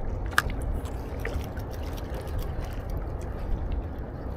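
Seawater lapping and sloshing against breakwater rocks, with wind buffeting the microphone in a steady low rumble. A brief sharp sound cuts through about half a second in.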